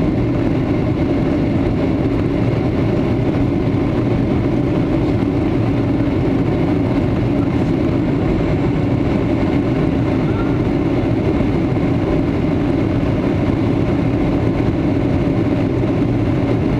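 Boeing 757-200 cabin noise during the climb after takeoff: the jet engines at climb power and the rush of air past the fuselage, heard from inside the cabin as a steady, even rumble.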